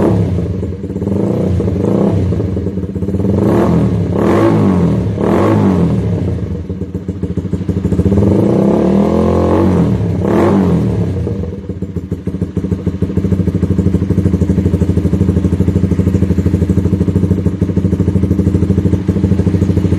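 Honda CBR150R's single-cylinder engine through a full-system racing exhaust, blipped in a quick series of short revs, then held up in one longer rev, then settling to a steady idle for the last several seconds.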